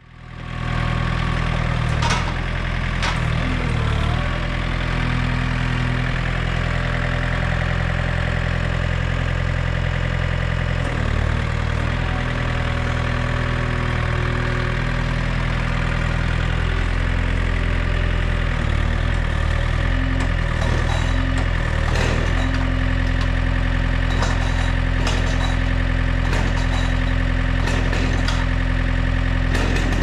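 Diesel engine of a backhoe loader running steadily as it moves a quartered oak log on its pallet forks, with occasional short knocks.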